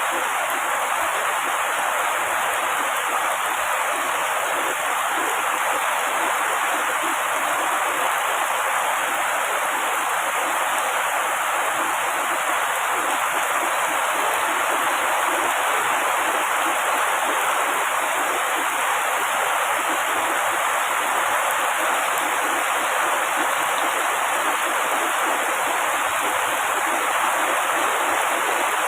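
Heavy rain falling steadily on tree foliage, an even hiss without thunder.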